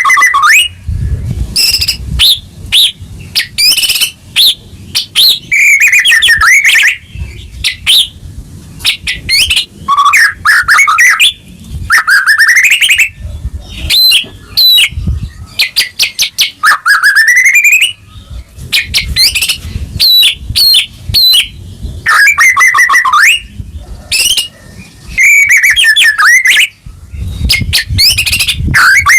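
White-rumped shama (murai batu) singing loud, fast, varied phrases of whistled notes, full of rising glides and sharp high notes in quick succession, in the aggressive full-song style kept-bird fanciers call gacor.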